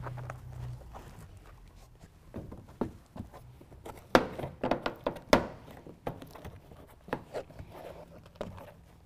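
Hands pressing and patting a BedTred Ultra truck bed liner panel into place against the bed wall: scattered dull knocks and rustling, the loudest knocks about four and five seconds in.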